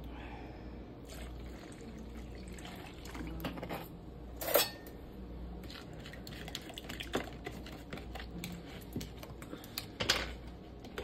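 Mojo criollo marinade poured from a jar into a plastic tub, then a spoon stirring the wet seasoning mix, its scattered clicks against the tub. A sharp knock comes about four seconds in and another near the end.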